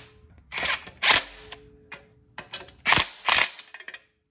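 Clutch pressure-plate bolts being run down onto the flywheel of a Honda K24 engine with a ratchet: several short bursts of ratchet clicking and metal-on-metal clatter, the loudest about a second in and again near three seconds.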